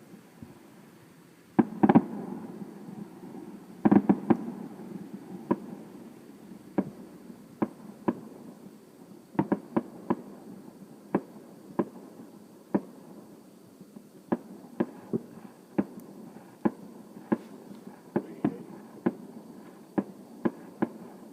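Fireworks going off in a string of sharp bangs, with louder clusters about two and four seconds in, then single reports roughly once or twice a second.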